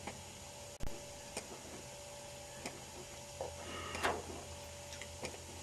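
Faint clicks and a brief scrape from plastic parts of an LED TV's backlight assembly being handled, over a faint steady hum.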